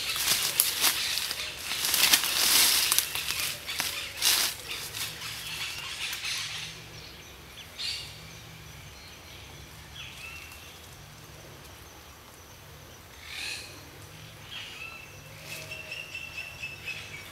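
Dry leaves and twigs crunching and rustling under a person's feet and body as they walk through leaf litter and sit down among fallen branches. The crunching stops about seven seconds in, leaving a quieter stretch with a few short bird chirps.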